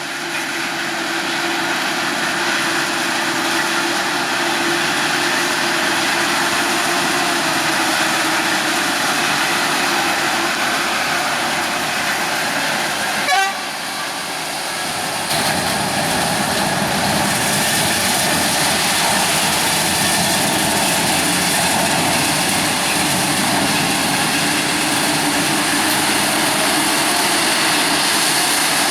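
Maize harvesting machinery, a forage harvester working alongside tractors, running steadily and loudly with a held engine tone. The sound shifts abruptly about 13 seconds in and again about 15 seconds in.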